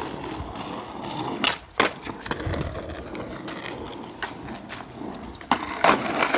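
Skateboard wheels rolling over rough concrete, with several sharp clacks of the boards. The loudest clacks come about a second and a half in and again near the end.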